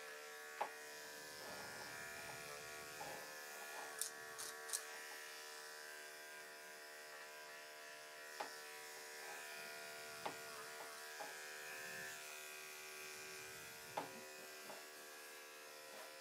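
Electric dog-grooming clipper running with a steady hum, with a few short clicks along the way.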